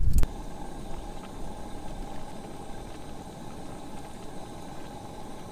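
A short loud noise at the very start, then an engine running with a steady, even hum.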